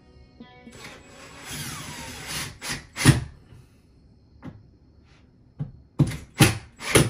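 Background music fading out, then a rustling scrape followed by a series of sharp knocks and thumps as a closet rod bracket is fitted by hand up under a wooden shelf. The loudest knock comes about three seconds in, and three more come close together near the end.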